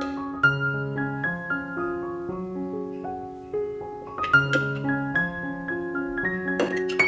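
Background piano music, a gentle piece of chords and melody notes changing every half second or so. A couple of short, sharp noises cut through it about four and a half seconds in and again near the end.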